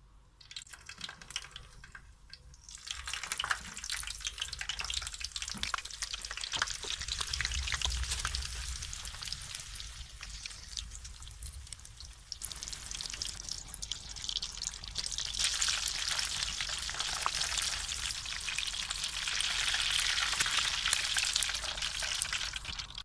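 Chicken samosas deep-frying in hot oil in a frying pan: a steady sizzle with fine crackling. It starts quiet, picks up a couple of seconds in, and is loudest in the second half.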